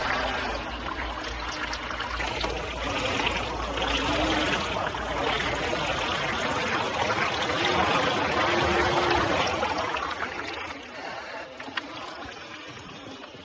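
Muddy water churning and splashing around the big lugged tyres of a King Kong RC Lurker amphibious RC vehicle as it drives through a puddle. The splashing is quieter in the last few seconds.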